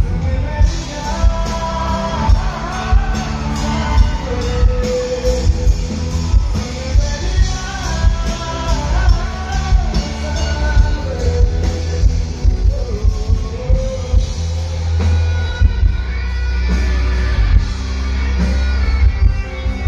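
Live rock band playing over a loud PA: electric guitars and drums with a heavy low end, and a man singing over it.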